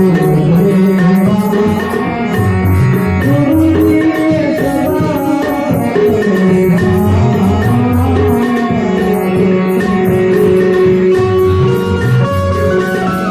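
Gujarati santvani bhajan music: a tabla-type hand drum keeps a steady rhythm under a melodic instrument line.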